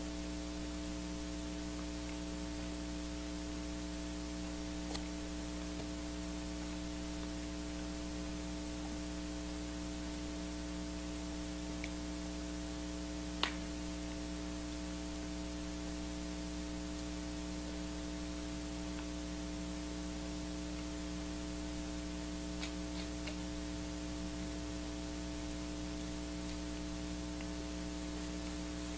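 Steady electrical hum with several fixed tones over an even hiss, the noise floor of the recording equipment, with a few faint clicks, the clearest about halfway through.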